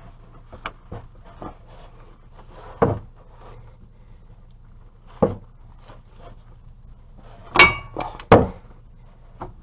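Steel hand tools clinking and knocking against metal in a car repair, a few scattered light knocks, then two loud metallic clanks near the end, the first ringing briefly.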